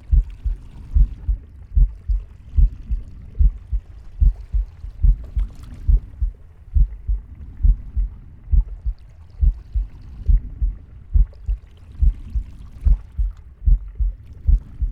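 Heartbeat heard up close: a steady, even run of paired low thumps, lub-dub, beat after beat, with a faint hiss in the higher range between them.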